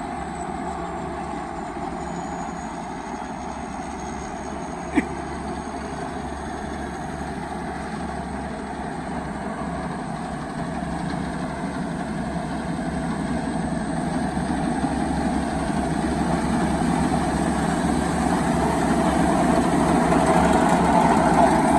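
Turbocharged 195 single-cylinder diesel engine of a Thai farm truck running steadily at idle, growing gradually louder over the second half, with one sharp click about five seconds in.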